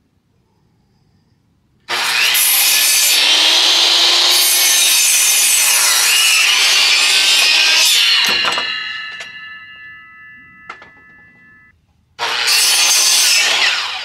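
Electric miter saw cutting through a 2x4. It starts about two seconds in and runs loud through a cut of some six seconds, then spins down with the blade ringing. A second, shorter cut starts about twelve seconds in.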